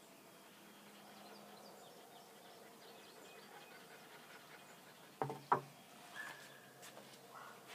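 Faint outdoor background of insects chirping. About five seconds in come two sharp knocks of the measuring stick against the grooming table, then a short high whine from the terrier.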